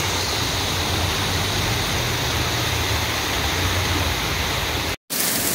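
Steady rush of heavy rain and runoff water flowing along a flooded street, with a low rumble underneath. The sound drops out for a moment near the end.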